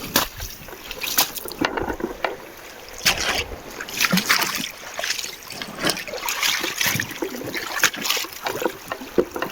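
Footsteps over wet stones at the water's edge, with water splashing and sloshing in irregular bursts.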